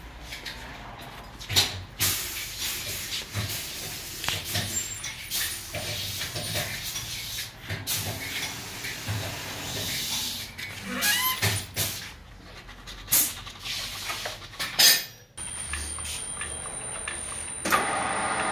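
Clanks and knocks of a wheel being handled and clamped on a tyre-shop wheel balancer. About 15 seconds in, the balancer's motor starts spinning the wheel with a steady whir and a thin high whine, which gets louder near the end.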